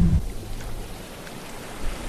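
Sea waves: a wave breaks right at the start, then the sound sinks to a quieter wash through the middle before the next surge builds near the end.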